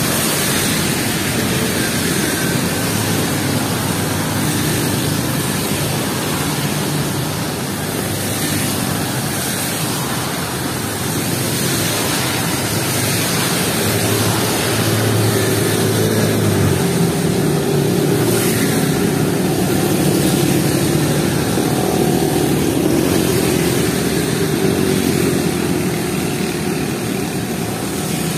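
Heavy rain falling, with cars and motorcycles passing on a wet road, their tyres hissing through the water. A vehicle's engine drone stands out about halfway through and stops abruptly.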